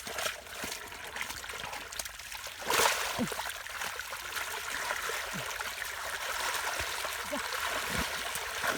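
Muddy water trickling and splashing, with a louder splash about three seconds in.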